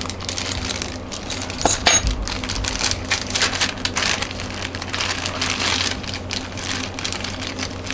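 Plastic zip-lock bags crinkling as they are handled, with screws and metal mounting brackets clinking inside them. A sharper click stands out near two seconds in.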